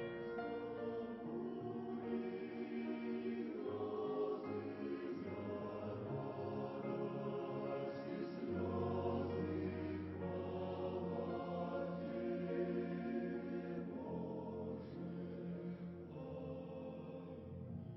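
Choir singing a slow hymn in long sustained chords, with a deep bass note held through the middle.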